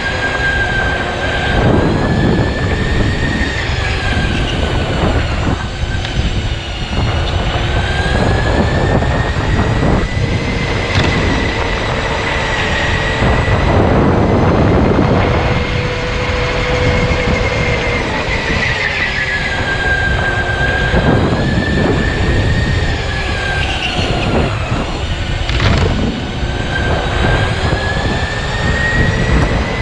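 Electric go-kart's motor whining over a rough rumble of running noise. The whine's pitch rises and falls several times as the kart speeds up and slows through the corners.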